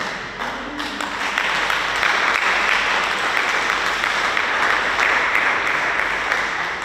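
Congregation applauding, a crowd of many hands clapping that builds over the first second or so and then holds steady.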